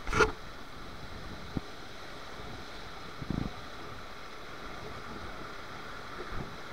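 Steady rush of moving water with wind on the microphone. A sharp hit just after the start is the loudest sound, followed by a small click and a duller low thump about three seconds in.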